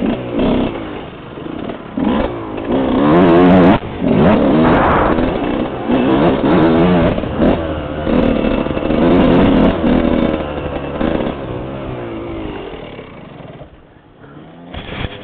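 Suzuki RM125's single-cylinder two-stroke engine heard from the rider's helmet, revving up and down over and over with the throttle. The engine sound falls away near the end as the bike slows.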